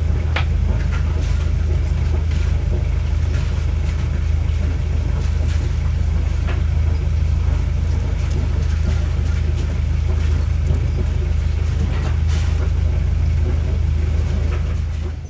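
Motorboat engine running at a steady speed under way: a low, steady drone.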